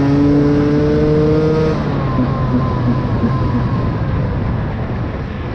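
KTM EXC 125 two-stroke enduro engine with a Scalvini exhaust, heard on board: it pulls under throttle with revs climbing for almost two seconds, then the throttle shuts and the engine winds down as the bike slows.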